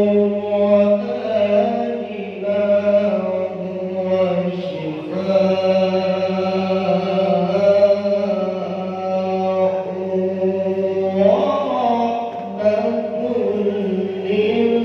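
A young male qari reciting the Quran in Arabic in a melodic style, holding long sustained notes with ornamented turns in pitch, broken by short pauses between phrases.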